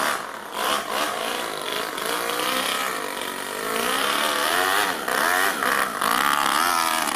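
Toyan FS-L200 two-cylinder four-stroke overhead-cam nitro model engine in an RC car, revving up and down as the car is driven, its pitch rising and falling over and over with a few brief drops in throttle.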